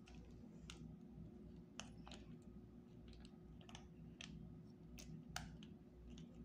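Faint, irregular clicks and crinkles of hands handling plastic food sachets and packaging while eating, the sharpest about five seconds in, over a low steady hum.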